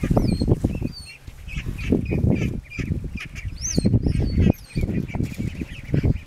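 A group of ducklings peeping constantly in short, quick high chirps, stressed at being herded by a dog. Several loud low rumbles come and go over the peeping.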